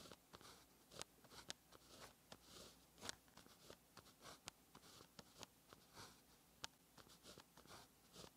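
Faint pen-on-paper writing sounds as a Chinese character is written stroke by stroke: short scratchy strokes of the pen tip across the paper, with sharp little ticks as the tip lands and lifts.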